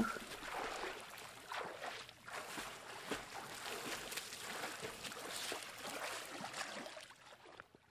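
Water sloshing and splashing in an ice-hole bathing pool as a man dips in the icy water. The sound is irregular and fades out near the end.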